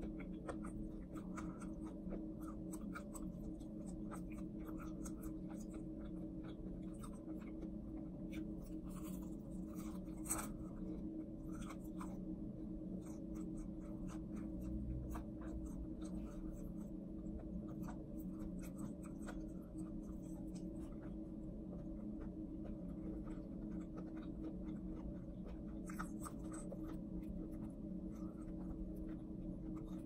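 Close-miked chewing and crunching of crispy fried chicken: many small crackling clicks, with one sharper crunch about ten seconds in, over a steady low hum.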